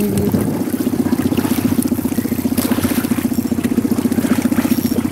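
Outboard motor running at low speed with an even, pulsing beat; its note drops just as the sound begins and then holds steady.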